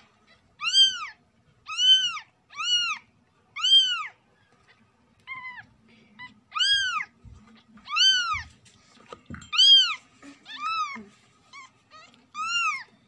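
A very young kitten mewing again and again: about a dozen short, high-pitched cries, each rising and then falling in pitch, with a short pause about a third of the way through.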